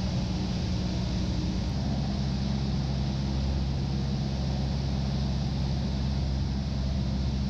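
Cessna 172's piston engine and propeller droning steadily in flight. The tone shifts slightly about two seconds in.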